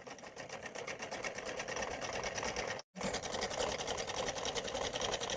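Sewing machine running in a fast, steady run of stitches, sewing gota lace trim down onto a fabric strip. It cuts out abruptly for a moment about three seconds in, then resumes.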